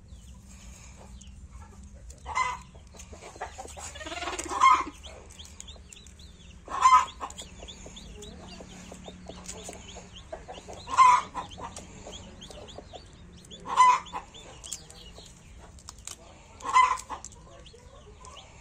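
Chickens clucking and calling: six loud, short calls spaced two to four seconds apart, over faint, continuous background clucking.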